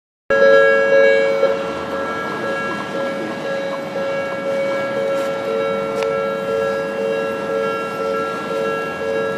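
Japanese railway level-crossing warning bell ringing steadily, a repeated two-note electronic ding.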